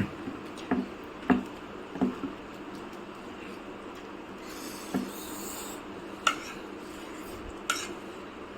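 Eating utensils tapping and clinking against dishes during a meal, about six separate light taps spread through a few seconds, with a brief rustle in the middle.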